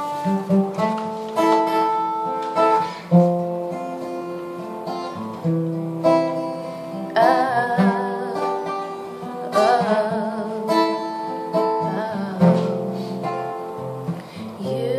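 Acoustic guitar playing a slow song intro, picked notes and chords ringing out.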